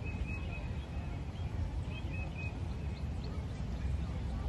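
A steady low rumble, with a small songbird twice singing a short phrase of three quick high chirps: once at the start and again about two seconds in.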